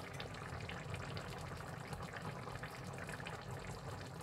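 Potato and green pea curry simmering in a frying pan: faint, steady bubbling with many small pops.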